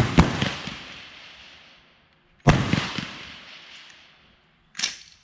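Rifle shots on a highpower rifle range: a loud shot right at the start and another about two and a half seconds later, each ringing out and dying away over about two seconds, then a fainter, shorter shot near the end.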